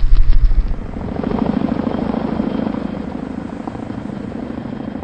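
Military helicopter's rotor beating fast and evenly as it flies close and then draws away, fading. A loud deep rumble fills the first second.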